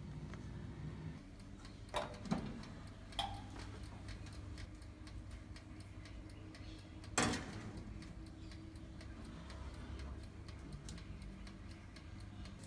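Countertop electric oven's mechanical timer ticking steadily, with a few metal clunks as the cake tin goes onto the wire rack and one louder knock about seven seconds in.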